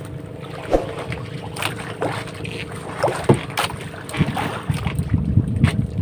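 Motorised outrigger boat's engine running steadily under way, under wind and water noise, with a few sharp knocks.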